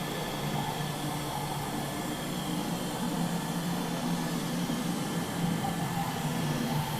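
Steady hum and airy hiss of the cooling system blowing cold air into a chilled survival-training room.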